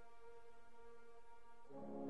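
Quiet background music of long held chords; a fuller, louder chord comes in near the end.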